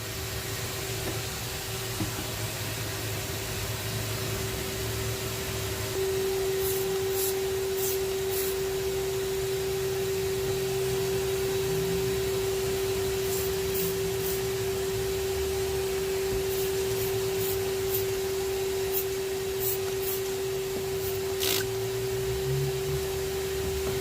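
Steady whine of a small electric motor over a constant low hum, typical of a shop vacuum blowing air into the exhaust so that leaks at the header flanges show up as soap bubbles. The whine gets louder about six seconds in, and faint light ticks come now and then.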